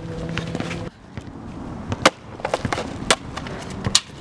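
Footsteps of two people walking briskly on concrete pavement: sharp heel strikes and scuffs at an uneven pace, the loudest about once a second.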